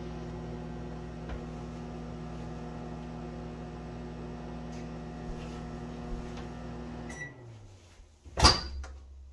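Microwave oven running with a steady hum. About seven seconds in it shuts off and the hum winds down in pitch. A second later there is a single loud, sharp clunk.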